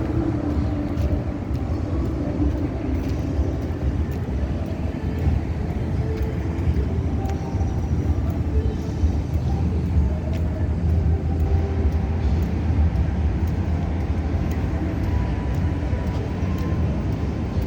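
Busy city street: a steady rumble of car traffic passing on a boulevard.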